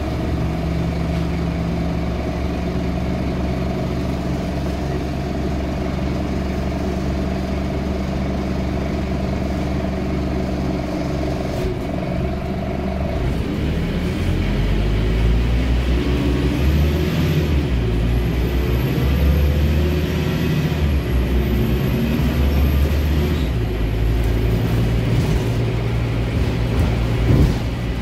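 Scania N310UA bus's rear-mounted five-cylinder diesel heard from inside the cabin, running steadily at idle for about the first half, then pulling away and accelerating through the gears, its pitch rising and stepping. A faint high whine rises and falls once the bus is moving, and there is a short knock near the end.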